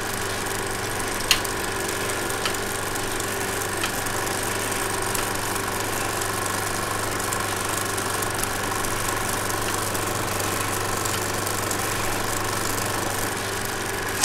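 16mm film projector running: a steady mechanical whir and hum from its motor and film transport, with a few sharp clicks in the first four seconds. The sound cuts off abruptly at the end.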